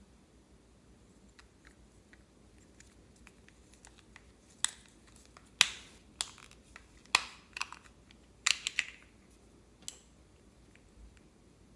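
Slime being handled and squeezed by hand: faint clicks at first, then about halfway in a run of sharp pops and snaps as trapped air bursts from it, the last one about ten seconds in.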